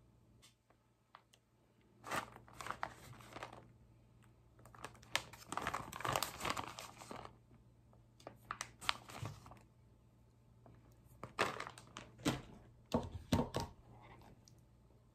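Wrapping or packaging being crinkled and torn open by hand, in four bursts of rustling with a few sharp clicks.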